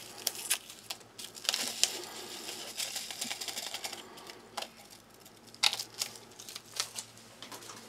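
Small packet of instant coffee granules crinkling as it is emptied and shaken over a mug, with the dry granules hissing into the cup, followed by a few sharp taps in the second half.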